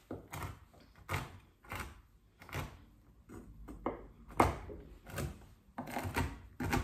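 Large kitchen knife rough-chopping almonds on a wooden cutting board: a string of dull knocks as the blade strikes the board, about one or two a second at an uneven pace.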